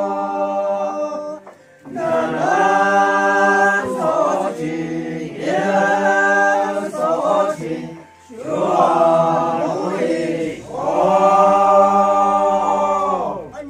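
Several voices singing unaccompanied in a chant-like song, in long held phrases with the pitch falling at each phrase end. There are short breaks for breath about a second and a half in and about eight seconds in.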